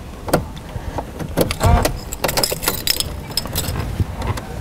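Car key being turned in the dash ignition switch of a 2007 Mercedes-Benz C230, the keys on the ring jangling and clicking against each other, with a heavier thump about a second and a half in.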